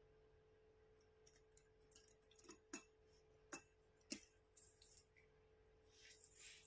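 Faint handling noises as things are packed away: a scatter of light clicks and knocks, then soft rustling, over a faint steady hum.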